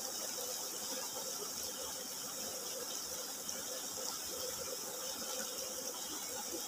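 Shallow stream running steadily, an even watery hiss with no distinct splashes or knocks.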